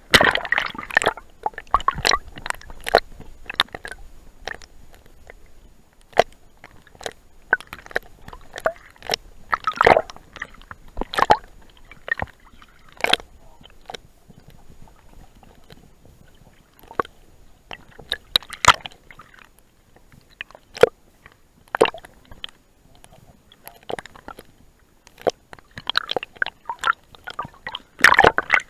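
Irregular sharp knocks and clicks, dozens of them at uneven spacing, with some sloshing and splashing of water.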